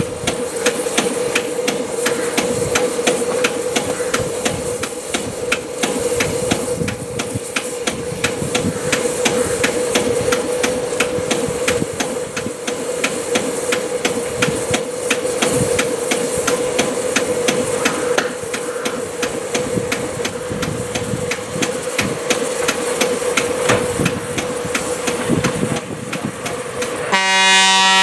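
Ravenglass & Eskdale Railway diesel locomotive Douglas Ferreira running slowly on approach, its engine giving a rapid, regular knocking over a steady hum. Near the end it sounds its horn once, for about a second, the loudest sound here.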